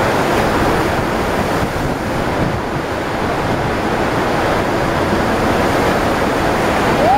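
Steady, loud rush of water from an artificial sheet-wave surf machine, the pumped water curling into a standing barrel wave as a surfer rides it.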